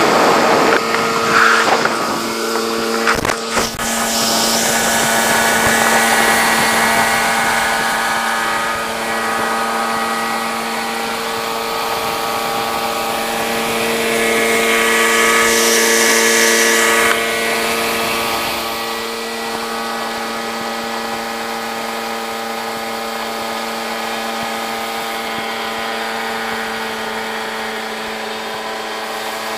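Johnson 15 hp outboard motor running at steady high throttle, pushing the canoe along, with a constant pitch and water rushing past the hull. A few sharp knocks about three seconds in.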